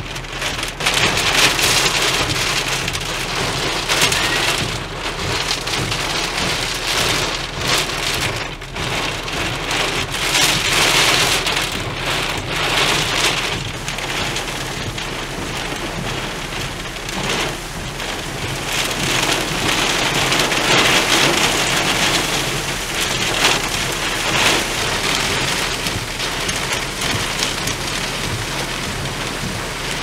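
Torrential rain pounding on a car, swelling and easing in waves as strong wind gusts drive it against the vehicle.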